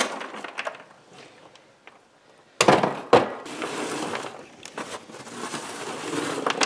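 Coarsely ground charcoal pieces being stirred by hand in a plastic tub: a crunchy, clinking rustle, with a couple of sharp clicks about two and a half seconds in.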